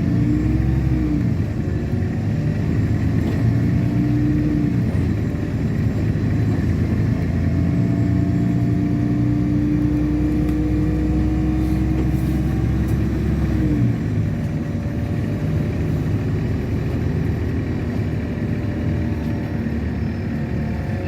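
LiAZ-6213.65 articulated city bus under way, heard from inside the cabin: the engine and drivetrain run under load with a whine that rises gently in pitch as it pulls. About two-thirds through, the deep rumble drops away as the power comes off and the bus rolls on more quietly.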